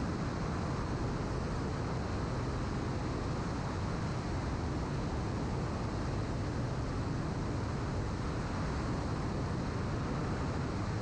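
Light aircraft in flight heard from a camera under the wing: the engine and propeller running steadily beneath a constant rush of airflow, an even noise with a faint low drone and no change in pitch.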